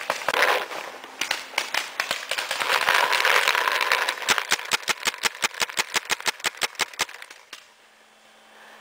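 Paintball marker firing a long string of rapid shots, sharp pops at about six a second at their fastest, with a stretch of rustling in the middle. The firing stops about a second before the end.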